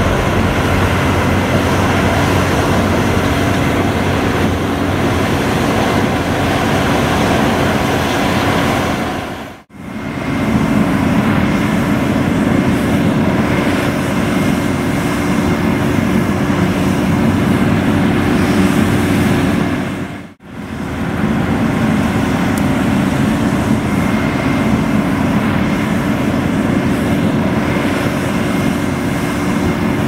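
Combine harvester working in wheat: a steady drone of engine and threshing machinery with a constant hum. The sound drops out briefly twice, about ten and twenty seconds in, and resumes at much the same level each time.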